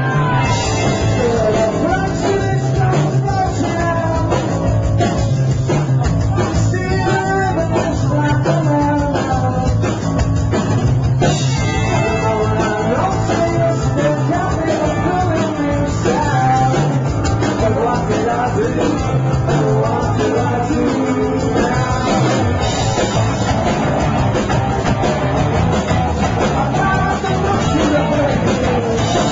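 Rock band playing, with electric guitar, bass and drums and a singing voice over them.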